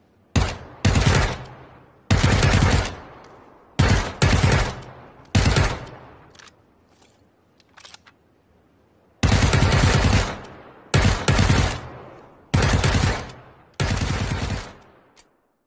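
Assault rifle gunfire sound effect: short bursts of automatic fire, each trailing off in an echo, with a gap of about three seconds in the middle that holds a few faint clicks of a reload.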